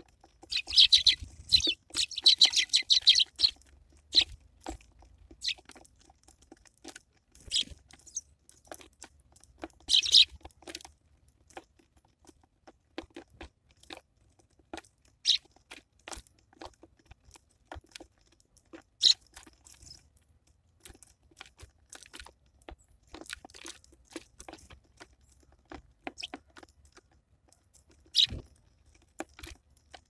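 Eurasian tree sparrows pecking and cracking sunflower seeds on a wooden feeder tray: many sharp taps and crunches throughout, with a burst of rapid chirping about a second in and shorter chirps around ten seconds, again later and near the end.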